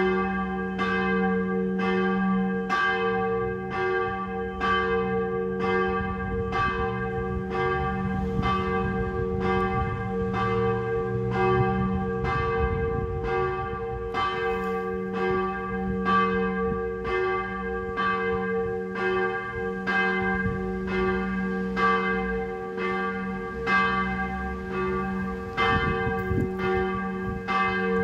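Church tower bells ringing in a continuous peal. The strikes come steadily, close to two a second, over a steady hum of several bell tones.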